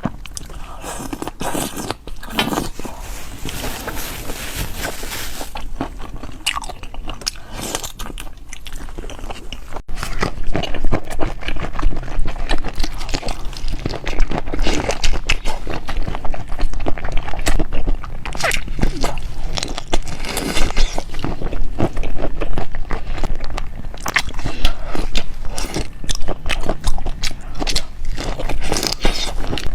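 Close-miked eating: crunchy bites and chewing of food, with many sharp crackles. It gets abruptly louder about ten seconds in.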